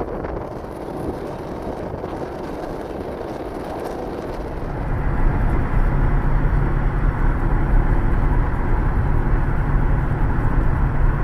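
An engine running steadily under a rushing, wind-like noise. About four and a half seconds in it gets louder and a steady low hum comes in.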